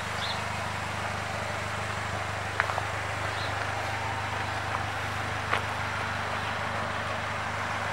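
2019 Polaris Slingshot SL's 2.4-litre four-cylinder engine idling steadily. A quick double click about a third of the way in and a single click just past the middle stand out above the idle.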